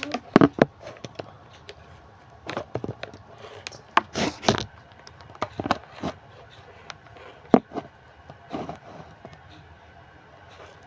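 Irregular sharp clicks and knocks of handling, as multimeter test probes and a battery are handled and pressed together. The loudest come near the start, around four seconds in and about seven and a half seconds in.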